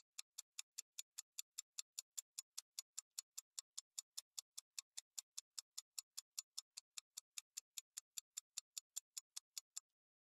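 Clock-ticking sound effect used as a quiz countdown timer: a long, even run of sharp ticks, about five a second, that stops shortly before the answer is revealed.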